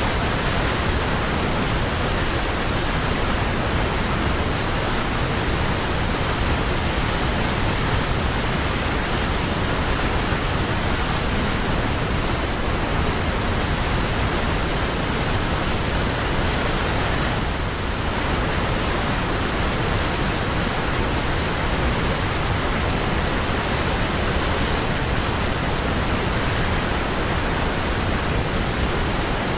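Waterfall: water falling and splashing as a steady, loud, even rush with no letup.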